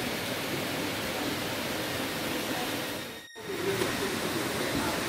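Electric model trains running on a tabletop layout: a steady running noise of wheels on track, which cuts out briefly about three seconds in.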